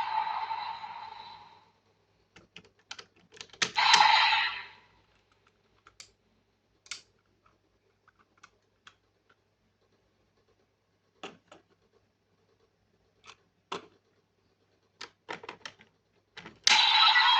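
Scattered clicks and clacks of plastic toy parts being handled. There are short bursts of electronic sound effects through a toy's small speaker: one fading out at the start, one about four seconds in, and another starting near the end.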